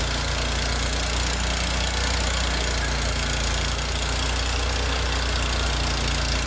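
Walk-behind stump grinder's engine running steadily at idle while the machine is walked into position, its cutting wheel not yet at work on the stump.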